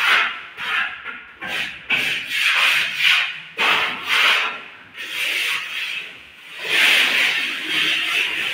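Hand plastering: a plasterer's trowel scraping and smoothing wet cement plaster across a wall in repeated rasping strokes, about one a second, running into a longer continuous stroke near the end.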